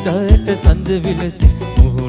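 Bass-boosted Sinhala live-band nonstop music: a heavy kick drum hits often in close pairs under a fast beat, with a bending lead melody over sustained chords.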